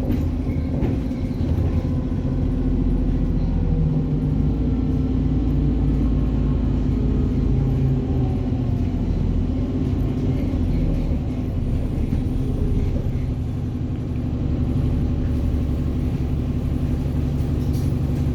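Alexander Dennis Enviro400 double-decker bus's diesel engine running with a steady low drone, a faint whine rising and falling in pitch over it. The deepest part of the rumble eases a little past the middle.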